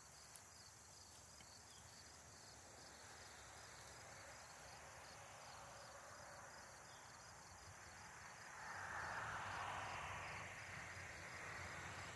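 Faint insects chirping in a steady, evenly pulsed high trill, with a louder rustle of grass and soil from hands digging around the roots about two-thirds of the way through.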